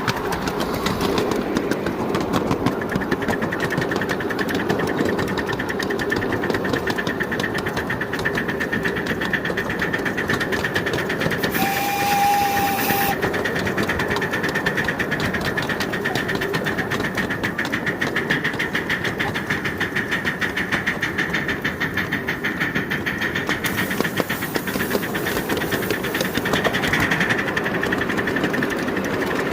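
5-inch-gauge live-steam miniature locomotive running: a fast, steady beat of exhaust and wheel clatter on the track, with a brief tone and hiss about twelve seconds in.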